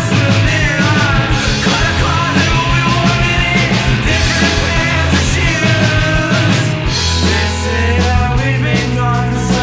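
Rock song played by a full band, with drums, bass and a singing voice.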